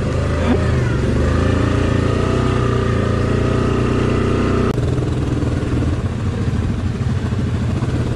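ATV engine running steadily as the quad is ridden along a rough trail. About five seconds in the sound cuts abruptly to a choppier, more uneven engine note.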